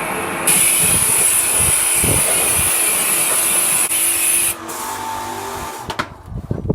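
Blast of air hissing hard as dust and dirt are blown out of a stripped power supply unit. It runs strong for about four seconds, drops to a weaker blow, and stops a little before the end.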